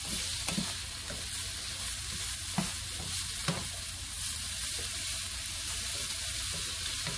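Diced onion, celery and carrots sizzling in oil in a nonstick frying pan, stirred with a spatula that scrapes and knocks against the pan a few times.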